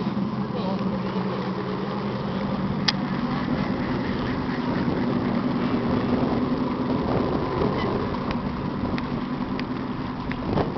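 A model lifeboat's electronic engine sound unit plays a steady diesel engine drone through its onboard speaker while the boat cruises. The note rises a little about three seconds in, and there is a single sharp click just before that.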